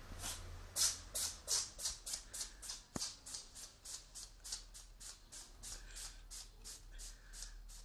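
A cat sneezing over and over in a rapid fit: short, hissy puffs about three a second, loudest near the start and gradually getting softer.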